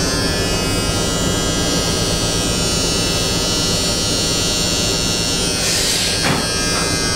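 Philips electric beard trimmer switched on and running steadily with a buzzing motor hum. About six seconds in a brief rasp rides over the hum.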